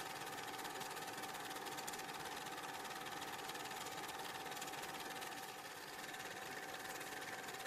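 A steady mechanical whir with a constant high hum running under it.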